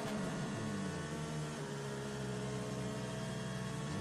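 Simulated engine sound of a remote-control toy sports car, running as a steady hum with a few small pitch slides near the start.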